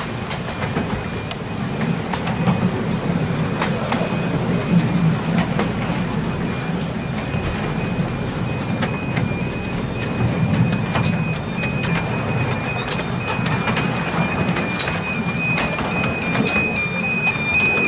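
Miniature 7¼-inch gauge diesel locomotive running as the train rolls along, its engine a steady low drone under irregular clicks of the wheels over the rail joints, with a thin steady high whine.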